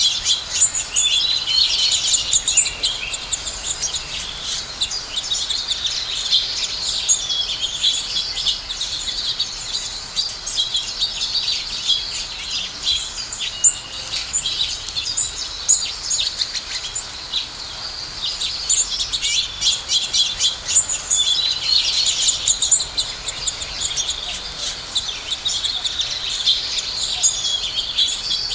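A flock of house sparrows chirping continuously, many short overlapping chirps, busier near the start and again about three-quarters of the way through.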